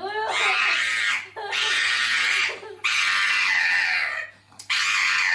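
A dog screaming in four long, high-pitched cries, each about a second long with short breaks between.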